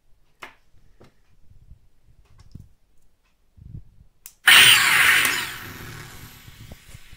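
A few faint clicks, then about four and a half seconds in a proton pack soundboard effect played through speakers: a sudden loud, noisy blast that fades away over about two seconds.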